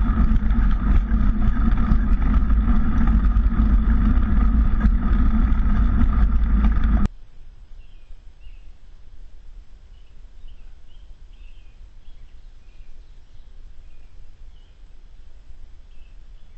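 Loud, even rumble of wind and riding noise on an action camera's microphone, which cuts off abruptly about seven seconds in. After that comes a quiet woodland background with faint, scattered bird chirps.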